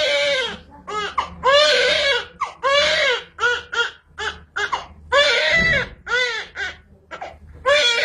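Newborn baby crying hard during a circumcision: a string of high-pitched cries about a second long, each rising then falling in pitch, broken by quick breaths.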